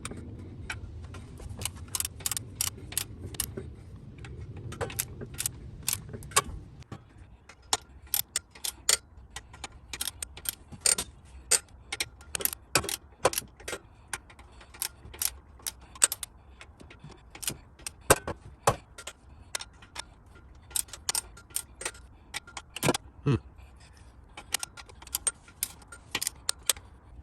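Irregular sharp metallic clicks and clinks of hand tools and fasteners being worked on metal engine parts, some coming in quick clusters. A low steady hum underneath stops about seven seconds in.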